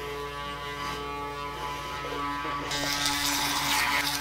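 Electric toothbrush running with a steady buzz while brushing teeth. About two and a half seconds in, a louder hissing scrub joins as the brush head works against the teeth.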